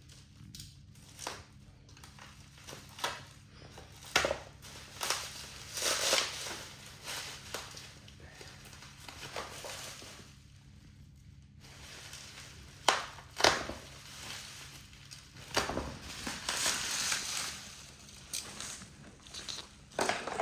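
Packaging being unwrapped by hand: irregular crinkling and rustling, with a few sharper knocks, the loudest a pair about two-thirds of the way through.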